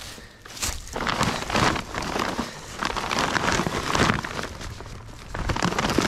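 Plastic sheeting and tarp crinkling and rustling in irregular bursts as they are pulled back by hand.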